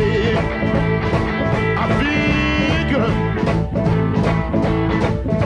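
Blues boogie music: guitar playing a steady boogie rhythm, with no singing.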